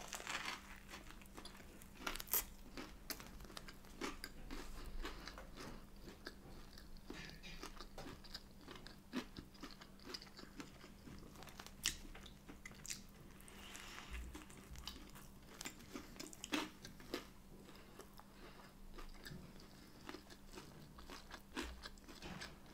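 A person biting into an Aldi Plant Menu spicy no-chicken burger and chewing it, with scattered small crunches from the breaded coating.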